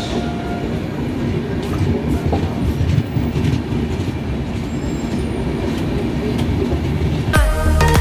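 Passenger train running slowly out of a station, heard from the coach's open doorway: a steady rumble of wheels on track with occasional clacks. Music with a beat starts abruptly near the end.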